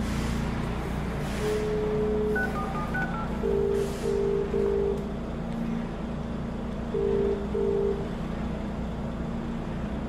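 Door-entry intercom on a security door calling out: a held tone and a few short beeps as the call button is pressed, then ringing in short two-tone pulses, three and then, after a pause, two more, over a steady low hum.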